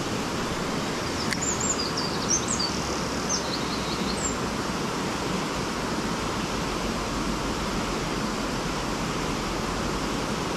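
River water rushing steadily, with a bird chirping several times in the first few seconds.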